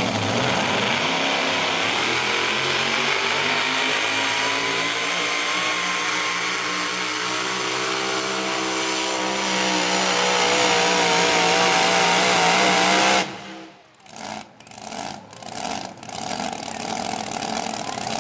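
Super-modified four-wheel-drive pulling truck's engine at full throttle under load, its pitch climbing slowly as it drags the sled. About thirteen seconds in it falls away abruptly, followed by a few short throttle blips and a lower steady running.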